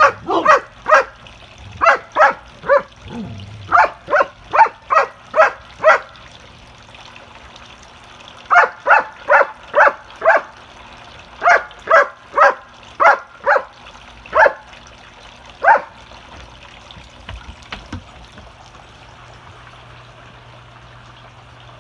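A dog barking during play, in two runs of quick, loud barks about two a second, which stop about two-thirds of the way through.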